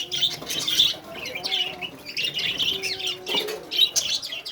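Many small birds chirping at once, a dense stream of overlapping high calls.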